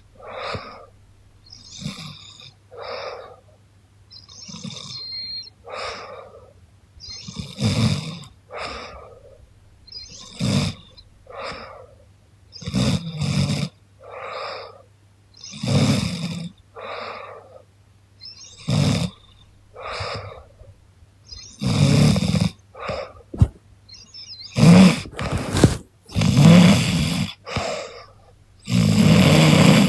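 A young woman snoring in her sleep: rasping breaths in and out every couple of seconds, with louder, deeper snores in the last third.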